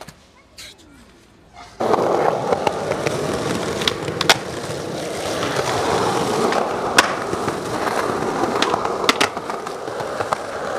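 Skateboard wheels rolling on concrete paving with a steady grinding rumble, starting abruptly a couple of seconds in after a quiet stretch, broken by scattered sharp clacks.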